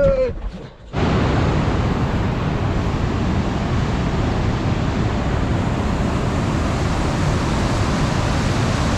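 River rapids rushing over rocks: a steady, loud hiss of white water that starts abruptly about a second in.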